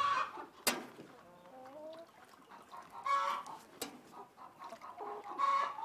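Layer hens clucking, a few short calls spread a couple of seconds apart, with two sharp clicks in between.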